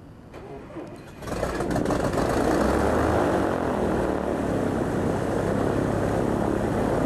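Socata Tobago light aircraft's piston engine starting close by: it catches suddenly about a second in and settles into a loud, steady run with the propeller turning.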